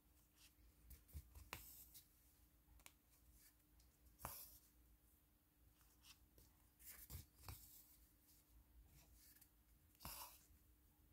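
Faint swishes and soft ticks of an embroidery needle and thread being pushed and pulled through stiff cross-stitch canvas, a handful of strokes spaced a second or more apart.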